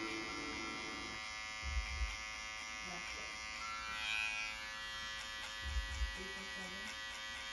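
Gamma+ Rebel cordless hair clipper running steadily with its blade lever fully open, cutting hair on the side of the head. Dull thumps come about two seconds in and again near six seconds.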